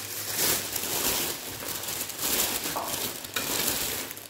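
Paper wrapping rustling and crinkling as a ceramic dinner plate is unwrapped by hand; the rustling is dense and crackly, then stops suddenly.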